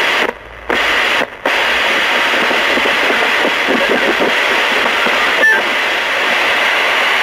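Mason R2222 five-band portable radio's speaker hissing with loud static between stations. The hiss cuts out twice briefly near the start, then runs steady with a short whistle about five seconds in, and stops abruptly at the end as the set is switched off.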